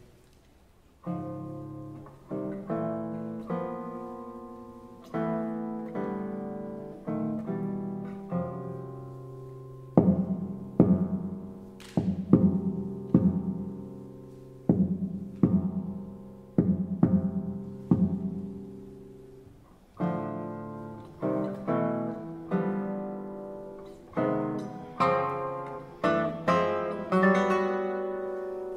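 Solo nylon-string classical guitar playing, with plucked single notes and chords that ring and die away. A brief pause at the start gives way about a second in to a phrase of notes; firmer, louder strokes come from about ten seconds on.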